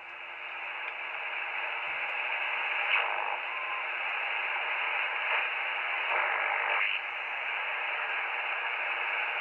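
Icom IC-725 HF transceiver's loudspeaker hissing with band noise in LSB as its tuning dial is swept across the 40-metre band. The hiss swells over the first second or two, and short snatches of passing signals break through about three, five and six to seven seconds in.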